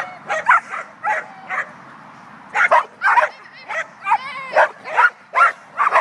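A small dog yapping over and over in short, sharp, high-pitched barks, about two a second, with a brief pause about two seconds in.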